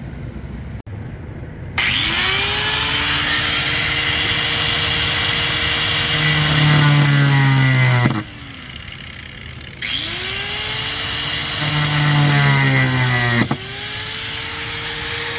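A handheld high-speed power cutting tool rough-cutting an opening in a C5 Corvette's body panel for a Z06 rear brake vent. It starts about two seconds in, its whine rising as it spins up and then sagging as it bites, stops suddenly about eight seconds in, and starts again two seconds later, running on with a brief dip near the end.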